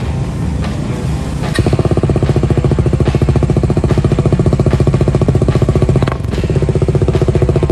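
Kawasaki Dominar 400's single-cylinder engine running at idle through a newly fitted aftermarket slip-on muffler: a rapid, even pulsing exhaust beat that sets in about a second and a half in, dipping briefly near the end.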